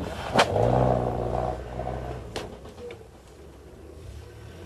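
Land Rover Discovery's Tdi turbodiesel engine working hard off-road, with a loud clunk about half a second in as the vehicle jolts through ruts, and a lighter knock a couple of seconds later. The engine note fades after about two seconds.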